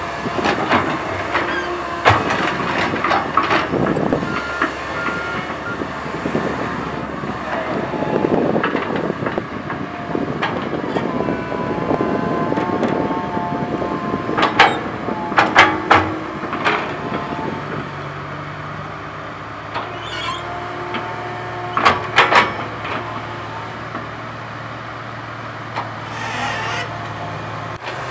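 Komatsu PC130 crawler excavator working: diesel engine running with whining hydraulics that shift in pitch, and several sharp metal clanks about halfway through and again a few seconds later.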